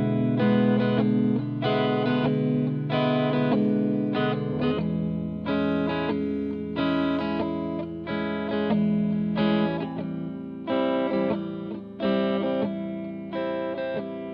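Instrumental passage of a slow soul song: a guitar with effects plays repeated picked chords over a held bass, with no singing.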